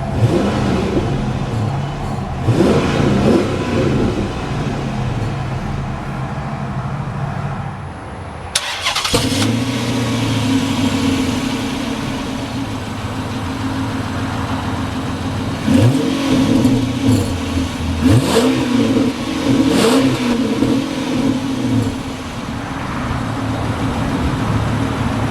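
2005 Chrysler 300C's 5.7-litre Hemi V8 idling steadily and blipped several times, the exhaust note rising and falling quickly with each rev, a couple of times near the start and three times later on.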